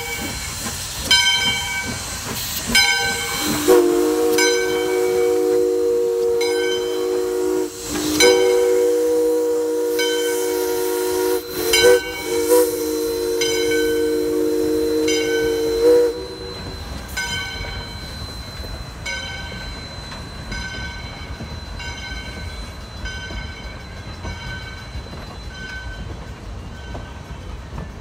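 Steam whistle of 2-8-2 Mikado locomotive No. 40 sounding a long chord of several notes at once, from about four seconds in until about sixteen seconds in, with a brief break near the middle and a couple of quick breaks just after. Throughout, the locomotive's bell rings at an even beat over a hiss of steam. Once the whistle stops, the train rumbles past as it pulls out.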